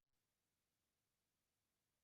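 Near silence: a faint, even hiss with no distinct sound.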